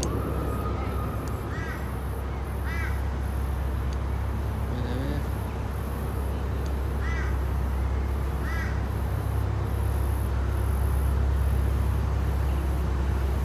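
A crow cawing several times in short calls, over a steady low rumble.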